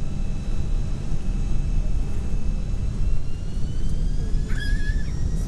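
Cabin noise of a McDonnell Douglas DC-10-30 on takeoff: a heavy, steady rumble from the General Electric CF6 engines and the airflow, with a faint engine whine rising in pitch over the last couple of seconds. A brief higher tone sounds near the end.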